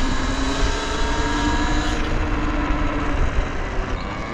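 Talaria Sting R electric dirt bike's motor and drivetrain whining while riding, the pitch drifting a little with speed, over low wind rumble on the microphone.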